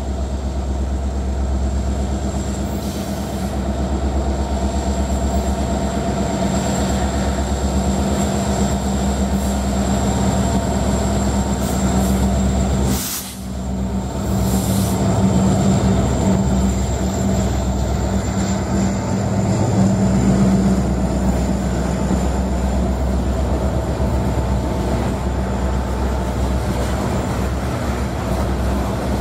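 Freight train passing: BNSF diesel locomotives running, then a long string of coal hopper cars rolling by on the rails, with a steady low drone throughout and a brief dip in level about halfway through.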